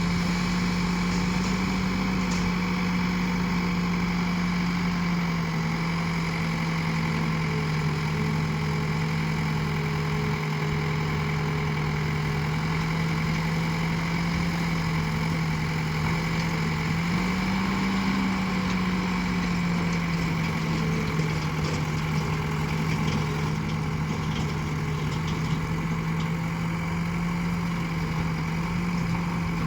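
Backhoe loader's diesel engine running steadily, its pitch rising slightly for a moment about halfway through and again near the end.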